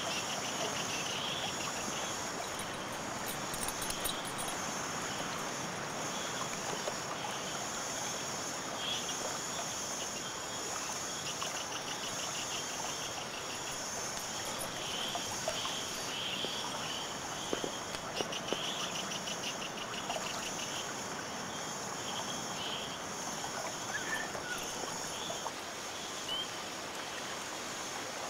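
A nature-sounds recording of a running stream's steady rush of water, with high-pitched chirping trills coming and going over it.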